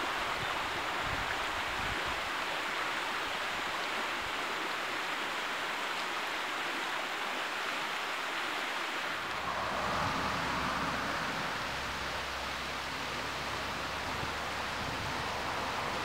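Shallow river running over stones, a steady rushing of water. About nine seconds in, a low rumble joins it.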